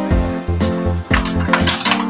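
Background music with a steady beat. About a second in, a metal ladle clinks and scrapes against the pan.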